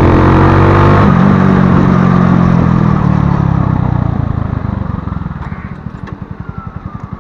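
Kuba Superlight chopper motorcycle engine running loudly under way, then dropping back to a rapid, even idle pulse as the bike slows to a stop. A faint falling whine comes in near the end.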